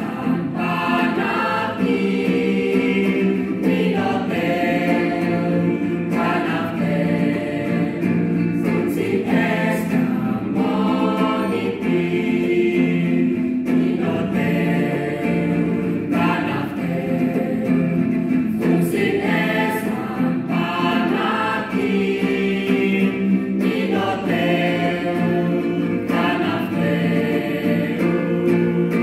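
Mixed choir singing a slow hymn in several-part harmony in the Dawan (Uab Meto) language of Timor, with acoustic guitar accompaniment. The voices sing continuously in phrases a few seconds long.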